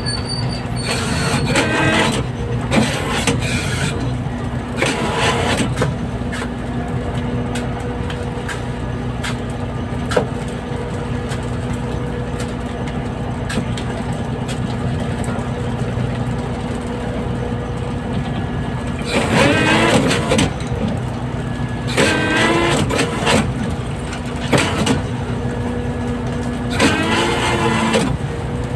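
Steady drone of a fishing boat's engine running, with a constant low hum under it. Men shout briefly to each other three times in the second half.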